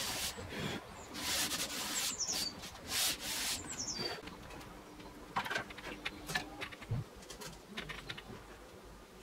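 Sandpaper on a block being rubbed back and forth along a thin wooden strip by hand, in a series of rasping strokes that stop about three and a half seconds in. A few light clicks and taps follow.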